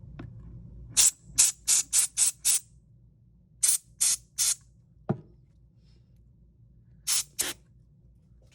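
Can of compressed-air duster blown into a phone's charging port in short blasts to clear out lint and dirt. There are a dozen quick hisses in three groups: six, then four, then two near the end. A single light knock comes in the middle.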